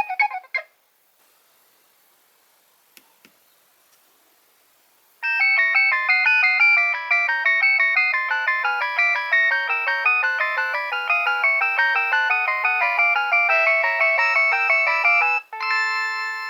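Nokia 3100 ringtone playing from the phone's loudspeaker: a fast melody of short, evenly paced notes, several at a time, starting about five seconds in and ending on a held chord. Before it, the last notes of another ringtone cut off, followed by a pause with two faint clicks.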